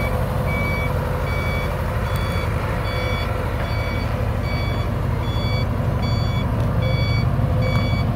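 Ford 6600 tractor's three-cylinder diesel engine running steadily while it tows a large trailer. Over it an electronic warning beeper sounds about one and a half times a second.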